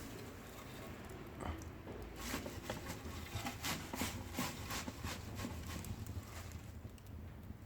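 Fire crackling in a glass-door fireplace: irregular snaps and pops, thickest around the middle.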